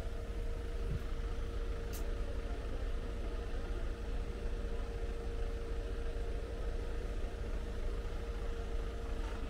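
Parked diesel coach buses idling: a steady low rumble with a constant hum above it, and a single faint click about two seconds in.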